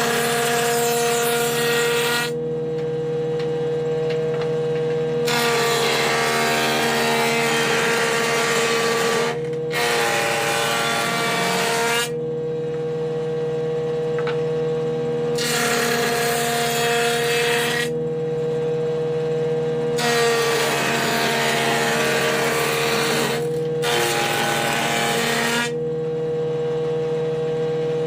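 Wood planer machine running steadily with a door-panel cutting bit, as wood is fed through it in repeated passes. Each pass lasts two to four seconds and adds a loud rough cutting noise over the motor's steady hum; there are about six passes with short gaps between them.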